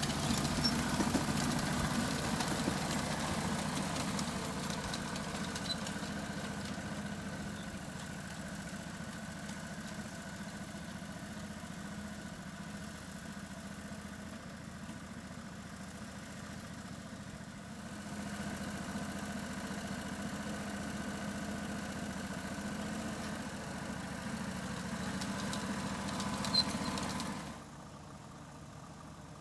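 Small engine of a ride-on 1/8-scale model locomotive running steadily as its freight train rolls past. It fades off over the first half, grows louder again later, and cuts off abruptly near the end.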